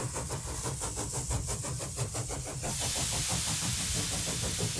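Steam engine sound: rapid, even exhaust beats, about eight a second, over a low rumble, giving way about two and a half seconds in to a steady hiss of escaping steam.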